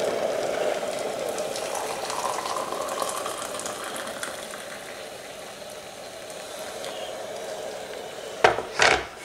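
Just-boiled water poured from a Russell Hobbs glass electric kettle into a ceramic mug, a steady splashing hiss that slowly fades as the pour goes on. Near the end come two sharp knocks as the kettle is set back down on its base.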